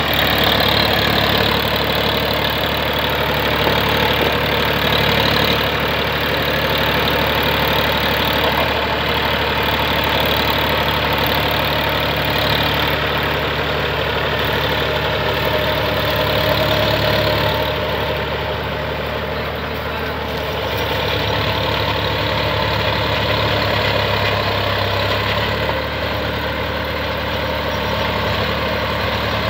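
Massey Ferguson 7250 DI tractor's diesel engine running steadily under load as it drives a tractor-mounted rotavator through the soil, with the rotavator's churning mixed in. The sound eases slightly for a few seconds past the middle.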